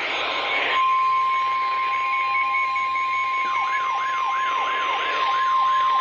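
Emergency Alert System tornado warning: the last of a harsh data burst, then a steady single-pitch alert tone of about 1 kHz, typical of the National Weather Service 1050 Hz warning alarm. About halfway through, a fast siren yelp joins it, falling sweeps repeating about three times a second.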